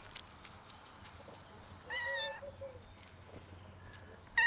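A cat meowing: one short meow about two seconds in and another beginning right at the end, with faint scattered clicks in between.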